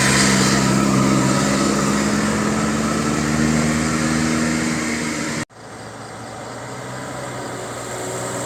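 A vehicle engine running at a steady speed, with a constant hum. A little over halfway through, the sound cuts out abruptly and comes back quieter, then gradually grows louder.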